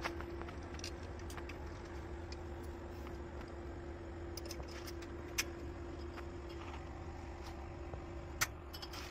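Light metallic clicks and clinks of hands working the wiring connectors on a diesel truck's alternator, with two sharper clicks about five and eight seconds in, over a steady low hum with one held tone.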